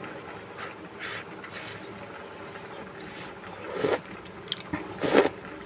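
A pot of green mussels boiling on a gas stove, a steady bubbling. A few short slurps cut through it, the two loudest in the second half, as the cooking broth is tasted.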